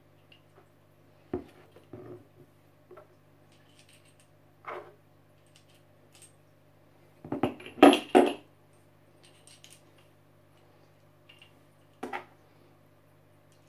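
Metal parts of a CO2 regulator and its manifold block clinking and knocking as they are handled and set down on a table, with a hex key among them. A few scattered clicks, and a tight cluster of louder knocks about eight seconds in.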